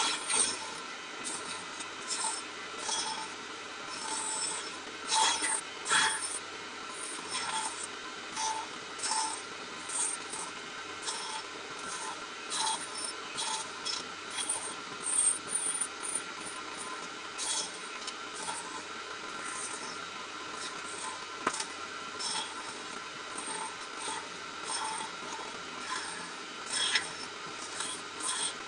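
Hand tools working wood: irregular short scrapes and clicks throughout, over a steady faint hum.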